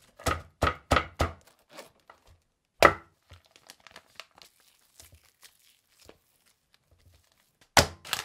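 Cabbage leaves cracking and crunching as they are torn out of a raw cabbage head by hand, several sharp snaps in the first second or so and another about three seconds in. Then faint rustling and ticks, and near the end a sharp stroke and crinkling as a knife cuts into a plastic package.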